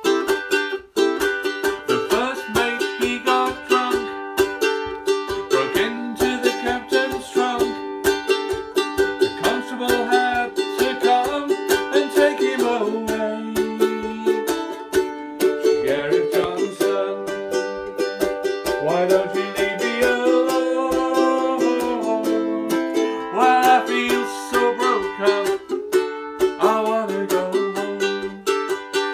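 A solo ukulele strummed steadily in the key of C, playing an instrumental passage of chords that change every few seconds.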